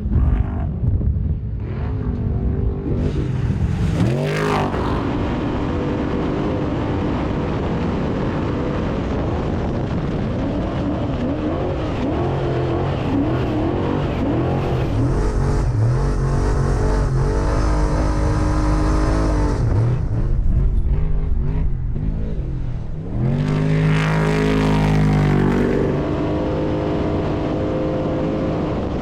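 Off-road race car engine revving hard, its pitch climbing and dropping again and again with the throttle and gear changes. It surges sharply louder about four seconds in and again around twenty-three seconds.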